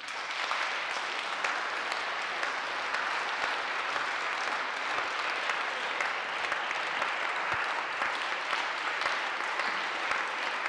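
Audience applauding steadily, the clapping starting at once and holding an even level throughout.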